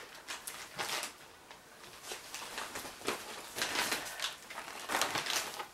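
Plastic shopping bag and packaging rustling as items are handled and pulled out: a string of short, uneven crinkling rustles.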